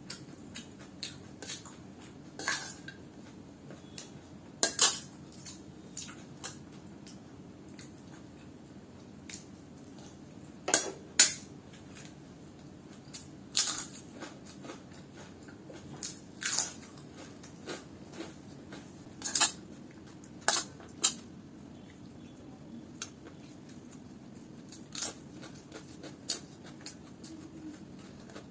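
Eating sounds: crunching bites of fried chips and chewing of poha, with a steel spoon clinking and scraping against a stainless steel plate. Sharp crunches and clinks come at irregular intervals, a few seconds apart.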